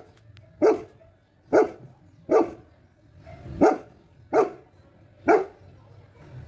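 Saint Bernard barking: six single barks, each short and separate, spaced roughly a second apart.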